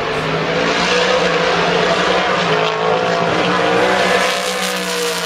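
A GT1 race car's engine running hard at high revs as the car comes round the corner and passes close by, its pitch sagging slightly as it goes past.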